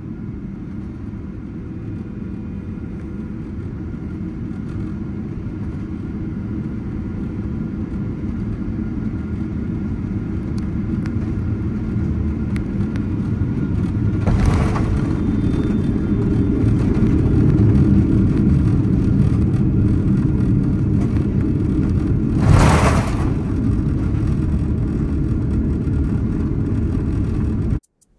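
Steady low rumble of a moving vehicle heard from inside, slowly growing louder, with two short rushing bursts, one about halfway and one near the end. It cuts off suddenly just before the end.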